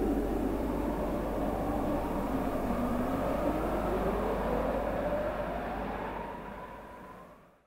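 Stage-production sound effect: a rumbling, noisy drone with a tone that dips and then glides steadily upward over several seconds, fading out near the end.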